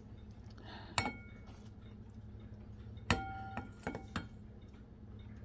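A wooden slotted spatula knocking against a white dish as beans are shaken off it: one ringing clink about a second in, then four more in quick succession a couple of seconds later.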